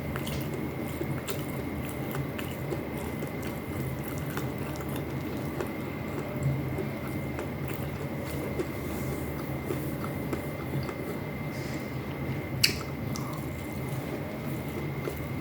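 Close-miked eating sounds: a person chewing and biting wet food (fish stewed in vinegar with rice), with soft squishy mouth sounds and small clicks, over a steady background hum and a faint high whine. One sharper click comes near the end.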